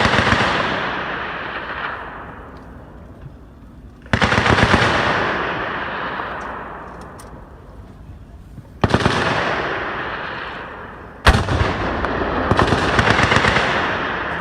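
Bursts of machine-gun fire from the M5A1 light tanks' .30 caliber bow and coaxial machine guns, four rapid bursts a few seconds apart, each trailing off in a long echo. One single sharp shot stands out about eleven seconds in.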